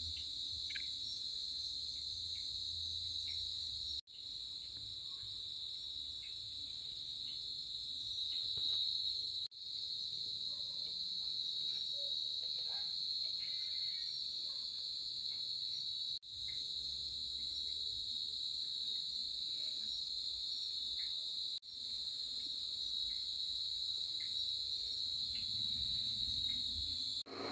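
Crickets chirping in a steady high trill that breaks off for an instant about every five or six seconds.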